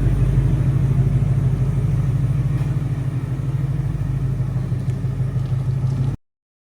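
Ford Mustang GT's 5.0 Coyote V8 running steadily with a deep, rumbling exhaust through catless long-tube headers, an H-pipe and the factory active-valve exhaust. It cuts off suddenly near the end.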